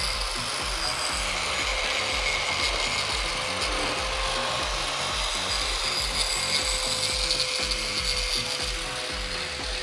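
Continuous mechanical running noise, like a machine or power tool, with a steady hum underneath.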